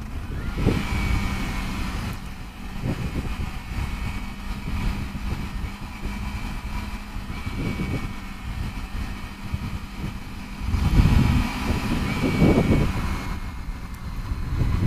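Sport motorcycle engine running steadily at road speed under rough, gusty wind noise on the microphone. The rush swells louder for a couple of seconds near the end.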